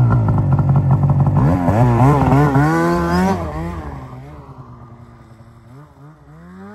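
Snowmobile engine revving hard, its pitch wavering up and down with the throttle, then dropping and fading away from about three and a half seconds in as the sled pulls off.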